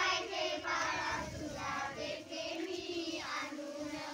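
A group of women and girls singing together, many voices overlapping in a chant-like folk song.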